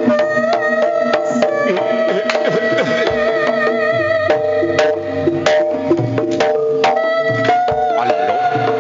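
Javanese jaranan gamelan music: hand-drum (kendang) strikes over repeating pitched metallophone patterns, with a held, wavering melody line above.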